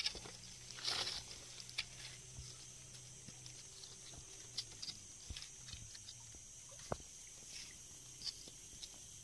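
Sparse light knocks and rustles as thin wooden sticks are laid and shifted over dry leaf litter, with a faint steady low hum underneath.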